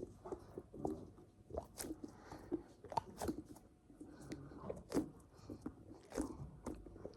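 A cheese-shaped foam squishy toy being squeezed and pressed with the fingers, giving irregular soft crackles and crunchy clicks.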